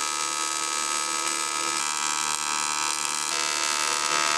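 TIG welding arc on an aluminium radiator bracket: a steady electric buzz with a high hiss on top, held without a break.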